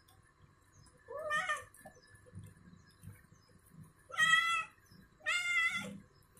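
Wet cat meowing three times as it is being shampooed: a short call about a second in, then two louder, longer meows close together near the end.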